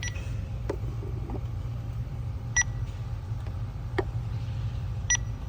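Three short electronic beeps, evenly spaced about two and a half seconds apart, over the steady low hum of the Audi A5's idling 2.0T engine.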